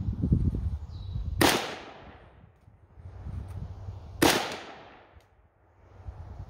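Two single shots from a Polytech AK-47 rifle in 7.62x39, about three seconds apart, each a sharp crack with a fading echo. A low rumble comes before the first shot.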